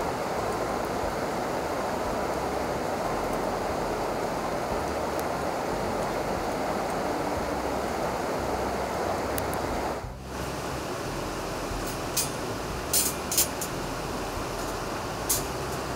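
River water rushing steadily, with a short break about ten seconds in. A few sharp clinks come in the last few seconds.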